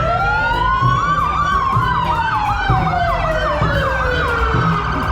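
Several emergency-vehicle sirens sounding at once: a slow wail gliding down in pitch and a faster yelp of about three rising sweeps a second, over a low rumble.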